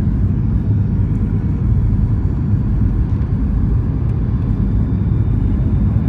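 Steady low rumble of a passenger aircraft's cabin noise during the descent to land.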